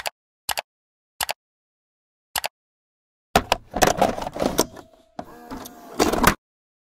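A few short, sharp double clicks, then a burst of plastic clicks and clunks from a cassette being loaded into a portable cassette player: the door is handled, the tape goes in and the deck is shut, with a short mechanical whir near the end.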